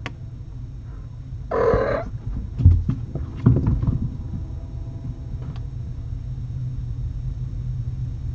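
A cat gives one loud, squawking meow about a second and a half in, followed by a few dull thumps, over a steady low hum.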